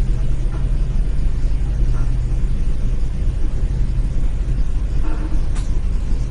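Bus engine running steadily with a low, even rumble, heard from inside the driver's cab as the bus is driven slowly. There is a brief click about five and a half seconds in.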